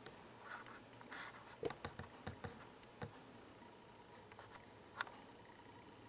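Faint twittering of small birds feeding, muffled through window glass, with scattered sharp clicks; the loudest click comes about five seconds in.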